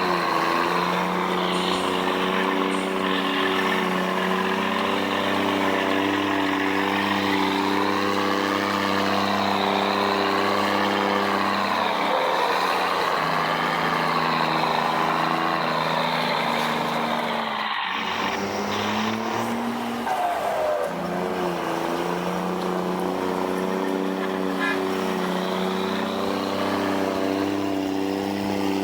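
Volvo engine rumbling at steady revs, the revs dropping briefly and climbing back about two-thirds of the way through.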